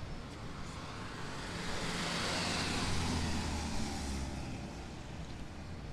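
A motor vehicle passing by: engine hum and road noise rise to a peak about three seconds in, then fade.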